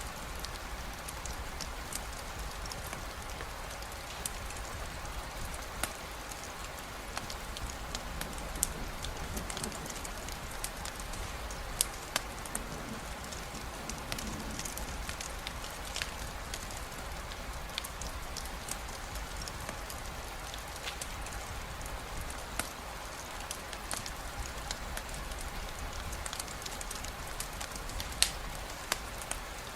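Steady rain falling, an even hiss with scattered sharp clicks and pops at irregular moments.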